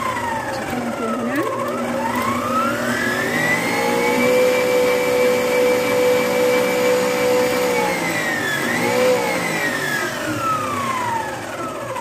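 Electric stand mixer motor whining as its wire whisk beats an egg yolk and sugar mixture in a steel bowl. The pitch drops, climbs back up and holds steady for a few seconds, then falls away as the mixer winds down and stops near the end.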